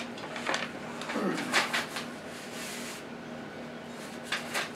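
Sheets of paper rustling and crinkling as they are handled and laid down on a table, in several short scuffs.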